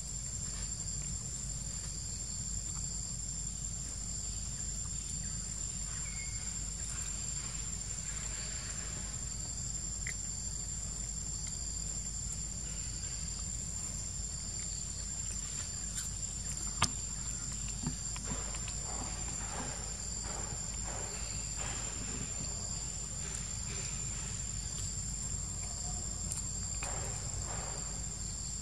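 Steady high-pitched drone of forest insects. A couple of sharp clicks come about two-thirds of the way through.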